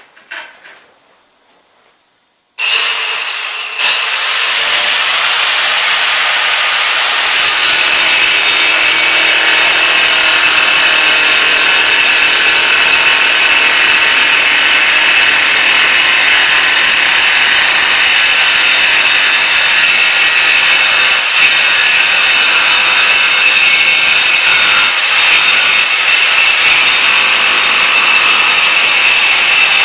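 Angle grinder with a cutting disc, switched on about two and a half seconds in and spinning up, then cutting through a wet ceramic mosaic tile. It makes a loud, steady, high-pitched grinding sound that runs on without a break, with a few light clinks before it starts.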